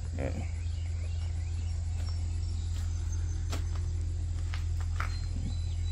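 Outdoor background: a steady low rumble with faint insects chirping over it and a few soft taps.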